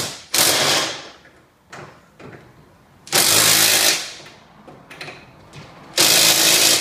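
Cordless drill-driver run in three short bursts about three seconds apart, driving in the bolts that fix a roller door opener motor to its bracket.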